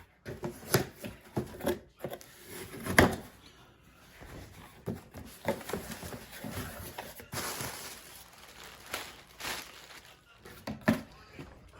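Fixed-blade knife cutting open a shipping package, with scattered sharp knocks and clicks as the package is handled and a scraping rustle for a few seconds in the second half.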